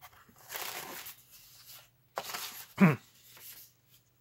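Cardboard and paper packaging rustling and scraping as a boxed pair of underwear is lifted out of a cardboard shipping box, in two bursts. About three seconds in comes a brief, louder sound that falls quickly in pitch.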